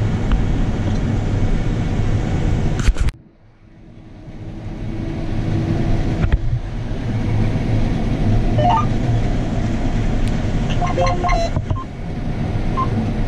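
Combine harvester running steadily from inside the cab while harvesting soybeans, a low even drone. About three seconds in the sound cuts out after a couple of clicks, then swells back over the next few seconds.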